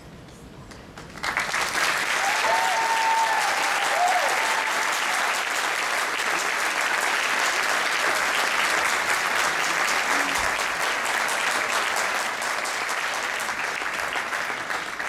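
Audience applause breaks out suddenly about a second in and carries on steadily.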